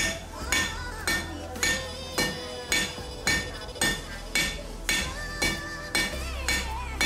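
Hand hammer striking red-hot mild steel bar stock on an anvil in a steady run of blows, about two a second, each with a brief metallic ring, over background music.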